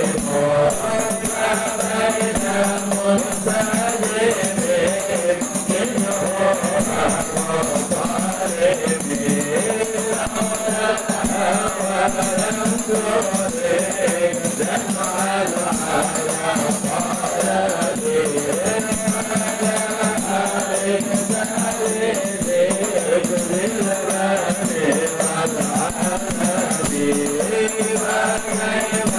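A group of men singing a devotional Arabic sholawat, led over microphones, with hand-struck frame drums beating a steady rhythm throughout.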